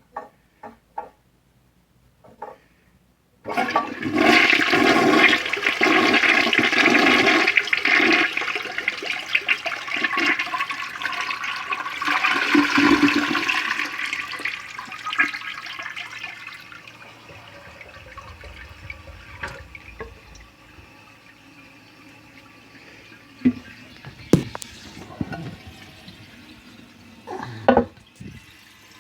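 1981 American Standard Cadet toilet being flushed: a few clicks, then a few seconds in a loud rush of flushing water that fades after about twelve seconds into the quieter hiss of the tank refilling, with a few more clicks near the end.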